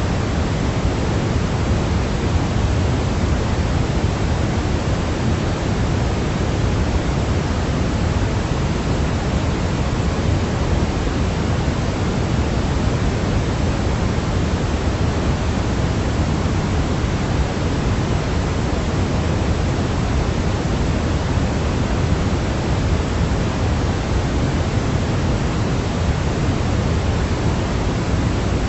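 Steady synthetic noise with its weight in the low end, a deep even hiss like pink noise, played as a sleep sound; it does not change at all.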